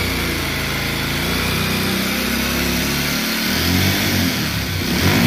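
Bajaj Pulsar motorcycle engine running, with the revs changing about three and a half seconds in. The mechanic calls this engine sound bad, an odd noise from over the fuel tank, along with weak throttle response.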